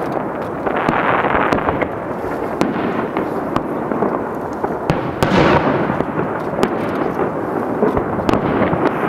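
Aerial fireworks bursting: a steady rumbling run of booms that swells twice, with many sharp crackling pops scattered through it.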